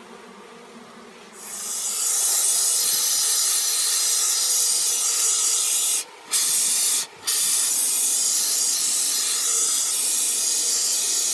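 Expanding spray foam hissing out of its can in a loud, steady spray. It starts about a second and a half in and breaks off twice for a moment in the middle.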